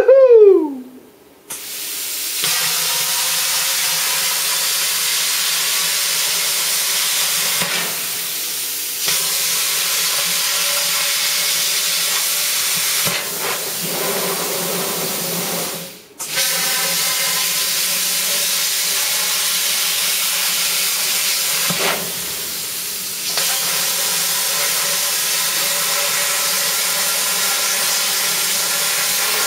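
Cheap 40 amp plasma cutter torch hissing steadily as it cuts through a thin stainless steel sink, starting about two seconds in, cutting out briefly about halfway and dipping a few times between cuts.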